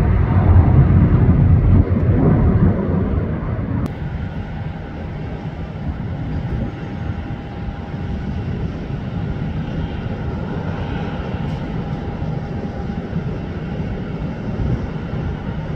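Jet engines of a climbing Boeing 757 rumbling loudly and fading. A sudden cut about four seconds in gives way to the quieter, steady hum of a twin-jet airliner on final approach, with a faint whine in the middle.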